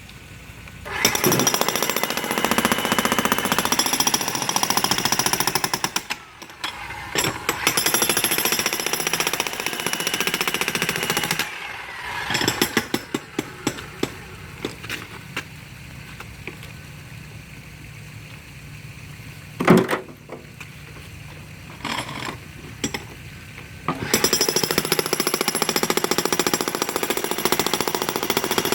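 A jackhammer breaking out concrete around a pool jet. It runs in long bursts of rapid hammering, with pauses and short stabs between them, and there is one sharp knock about two-thirds of the way through.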